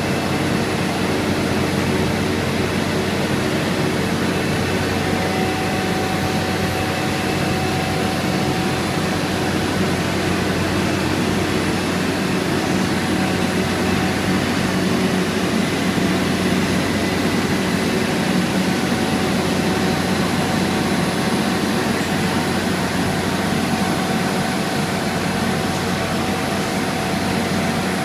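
Heavy diesel engine of asphalt paving machinery running steadily with an even low drone, heard close up from aboard the machine.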